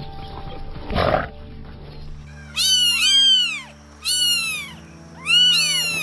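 Domestic cat meowing three times, each meow a drawn-out call that rises and then falls in pitch, over steady background music. A short rough noise comes about a second in.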